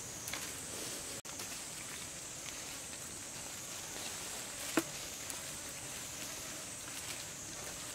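Outdoor forest ambience: a steady high-pitched hiss, with a single sharp click about five seconds in.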